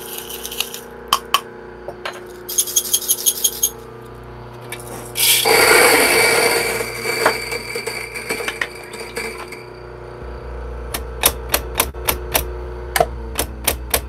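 Coffee beans being dosed into a Mahlkönig EK43S grinder. A quick water spritz (the Ross droplet technique) and a rattle of beans in a small cup come first. A loud rush of beans going into the grinder follows about five seconds in, then a low hum with a run of sharp taps near the end.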